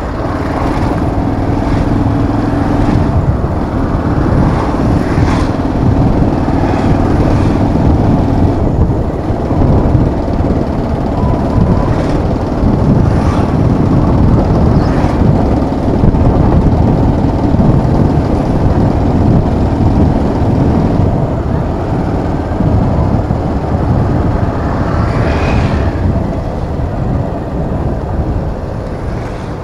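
Motorcycle engine running while riding, with heavy wind rumble on the microphone.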